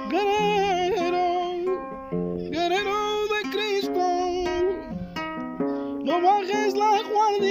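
A man singing in long, wavering held notes, three phrases in all, over strummed chords on an acoustic guitar.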